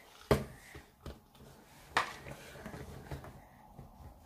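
A plastic Hatchimals Pixies toy egg being pressed and worked open by hand: two sharp plastic clicks about a second and a half apart, with light handling and rattling in between.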